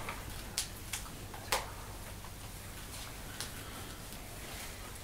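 A few light, sharp clicks or taps, about four in the first three and a half seconds with the loudest about a second and a half in, over a steady low room hum.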